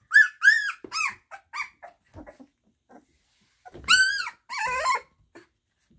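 Goldendoodle puppies about two and a half weeks old squealing and yelping in short, high, arching cries: a quick string of them in the first two seconds, then a louder pair around four seconds in. These are newborn puppies just starting to find their voices.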